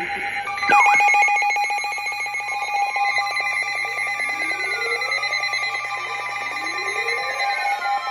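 Layered electronic alert tones: several steady tones over a fast, bell-like trill, starting about a second in. A rising swoop repeats roughly every three seconds.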